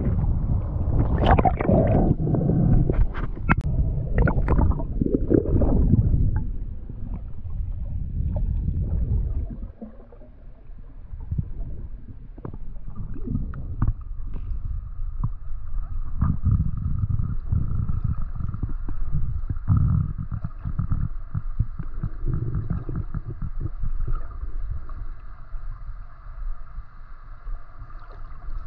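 Water gurgling and sloshing around a spearfisher's action camera underwater, heard muffled. It is loud and choppy with sharp splashy bursts for the first several seconds, then settles into a low rumble with scattered knocks and a faint steady hum.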